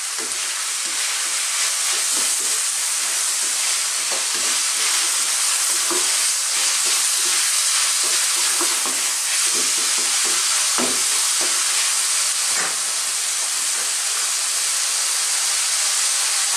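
Chicken strips and sliced vegetables sizzling in a hot wok on high heat: a steady hiss, with a few scrapes and knocks from a wooden utensil stirring them.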